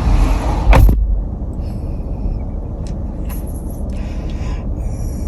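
A sharp thump about a second in, then the steady low rumble of a car.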